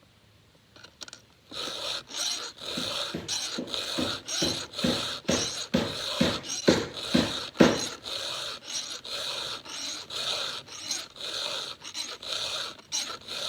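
Round chainsaw file rasping across the cutters of a 32-inch Husqvarna X-Cut saw chain by hand, in quick even strokes about two a second, starting about a second and a half in.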